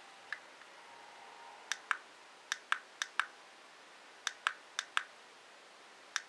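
Test button of a wireless flash trigger transmitter being pressed and released again and again, each press giving a pair of sharp plastic clicks about a fifth of a second apart, about five times.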